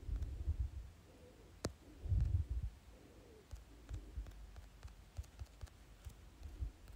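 Quiet room tone with two short clusters of low thumps, one at the start and one about two seconds in, and a single sharp click between them.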